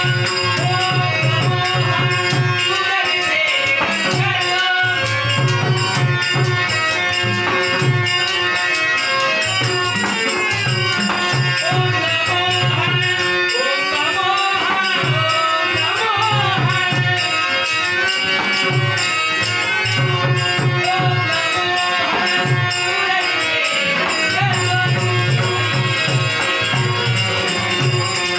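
Live Marathi devotional song (Narad geet) accompaniment: a harmonium melody over a steady drone with a barrel drum (pakhawaj) beating a steady rhythm, and a male voice singing the melody at times.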